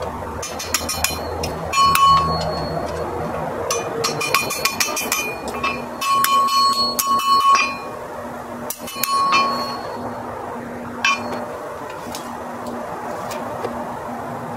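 Blacksmith's hammer striking red-hot iron on an anvil in several quick runs of blows, with pauses between them. Each run rings with a clear, bell-like metallic tone.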